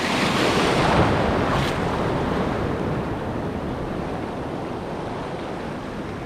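Sea waves surging and washing along the shore. The wash swells over the first two seconds, then eases to a steady rush.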